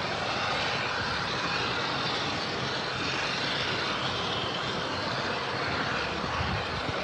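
Jet engines of a Boeing 747-8 airliner coming in to land, heard as a steady rushing noise with no distinct tones.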